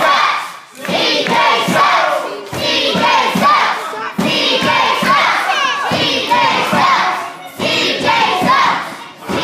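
Wrestling audience shouting and yelling, with high-pitched children's voices among them, rising and falling in repeated bursts about every second and a half.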